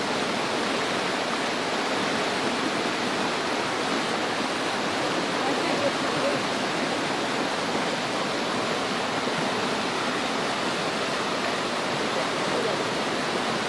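Steady rushing noise of water, even and unbroken throughout.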